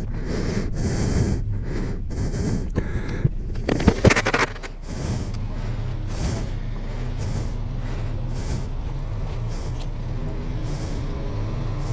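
2014 Honda Valkyrie's 1832cc flat-six engine running at a steady cruise, with rushing wind noise over it; a brief louder burst of noise about four seconds in.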